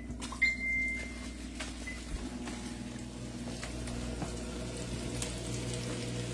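Microwave oven keypad beeps, a short one and then a longer one, followed by the oven running with a steady low hum as it heats a sada roti.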